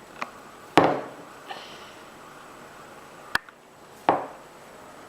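Metal multi-tool being handled while a folding knife blade is worked out of it: a louder knock about a second in, a sharp click a little after three seconds, and another knock near four seconds, with a few small clicks besides.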